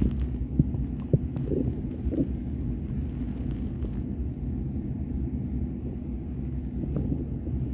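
Stomach growling: a steady low rumble with a few short gurgles in the first couple of seconds.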